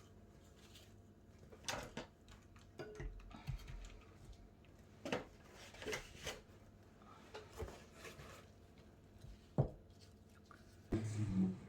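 Scattered light knocks, taps and rubbing from handling a freshly poured painting board, spinning and tilting it to spread the paint. A short louder low rumble comes near the end.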